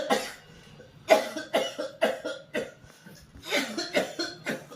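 A person coughing over and over in harsh, rapid fits: a single cough at the start, then two bouts of four or five coughs in quick succession with a short gap between them.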